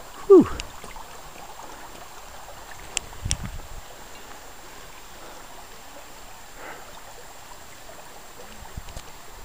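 Steady rush of a shallow creek trickling over gravel. About a third of a second in there is a brief loud sound that falls sharply in pitch, and around three seconds in a couple of sharp clicks and a low knock.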